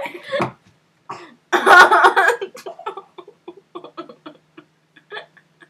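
A girl coughing and spluttering: a short burst at the start, a louder one about a second and a half in, then a run of short choppy bursts.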